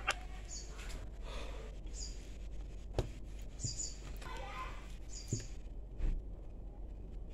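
Short, high bird chirps repeating every second or two, with a few sharp clicks and taps from hands handling small circuit boards and multimeter probes over a steady low hum.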